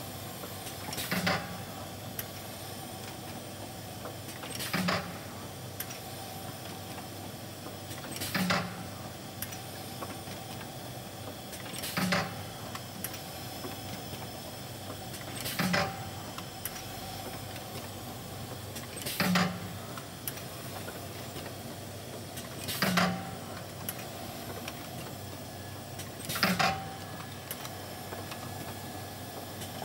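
Uhlmann C 130 carton-packing machine cycling slowly: one short mechanical stroke about every three and a half seconds, eight in all, over a steady machine hum.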